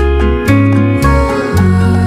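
Background music on plucked strings, guitar-like, with a low note that moves about every half second under a melody.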